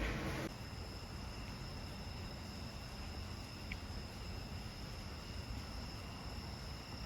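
Steady high-pitched trilling of crickets, two thin unbroken tones that start about half a second in, over a low background hum.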